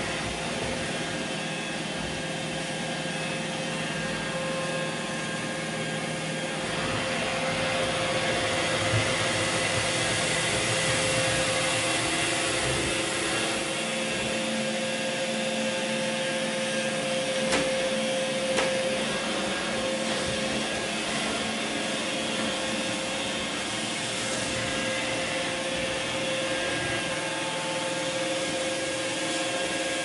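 iRobot Roomba i3 robot vacuum running on a hardwood parquet floor: a steady motor hum and hiss from its suction and brushes. Two short clicks sound about a second apart around the middle.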